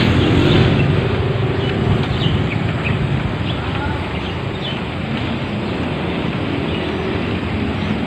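Steady outdoor rushing and rumbling noise, heaviest in the low range, with a few faint short high chirps or ticks over it.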